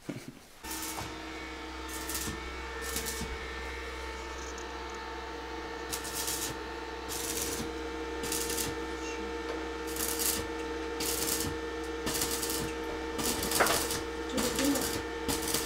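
Electric arc welding on a steel heating pipe: about a dozen short bursts of crackling hiss as the arc is struck and held, over a steady electrical hum.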